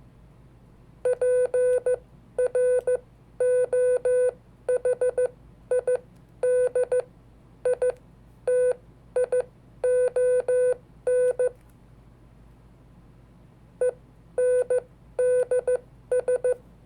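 Hand-sent Morse code (CW) on a code practice oscillator: a single steady beep keyed on and off in dots and dashes. It runs as a string of characters for about ten seconds, pauses for about two seconds, then sends a few more characters.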